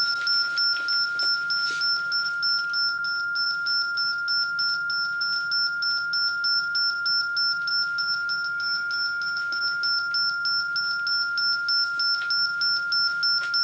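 Cardiac monitor sounding a continuous flatline tone, the sign that the patient's heart has stopped, with a rapid high-pitched pulsing beep alongside it.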